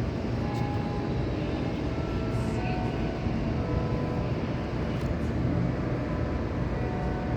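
Faint distant church bells chiming scattered notes at different pitches over a steady low rumble of wind and city noise.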